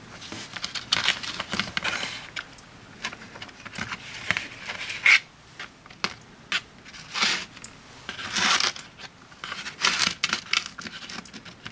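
Acorn barnacle (Semibalanus cariosus) shell plates being handled on cardboard: dry scraping, rubbing and small clicks in irregular bursts, with one sharper click about five seconds in.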